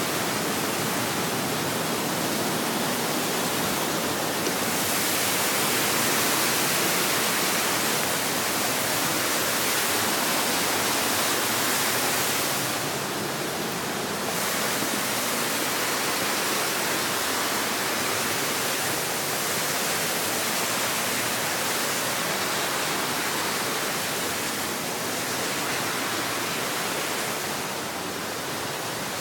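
High Falls on the Little River: a waterfall rushing steadily as an even wash of noise that swells and eases slightly from moment to moment.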